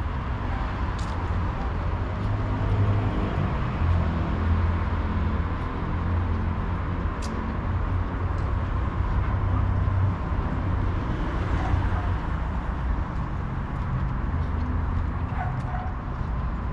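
City street ambience: a steady low traffic rumble, heaviest as a vehicle passes in the first half, with a few faint clicks.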